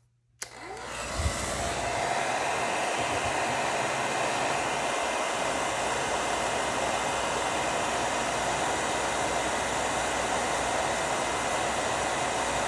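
Handheld heat tool switched on with a click about half a second in. Its fan spins up over a second or so and then blows hot air steadily as it heats the colored pencil layer on the canvas.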